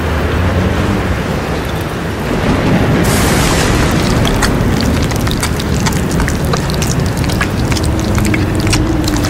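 Sound-effect rumble for graves breaking open: a deep, steady rumble under a wash of noise, joined about three seconds in by a hiss and a dense crackle of small clicks and rattles.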